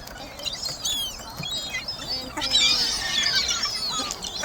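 A flock of birds chirping and calling over one another, many quick high chirps that grow busiest and loudest a little past halfway.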